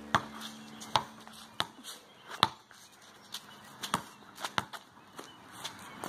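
A basketball bouncing on wet asphalt: a string of sharp, irregularly spaced knocks, the strongest roughly a second apart, with lighter ticks in between.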